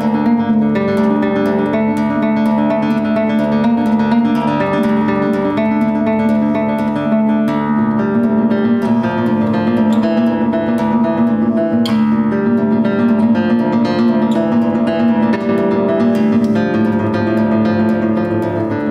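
Solo classical guitar, fingerpicked, playing a fast, continuous run of plucked notes over ringing bass, at a steady level throughout.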